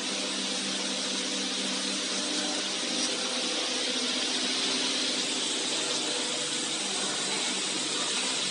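A machine running steadily, a low hum under an even hiss.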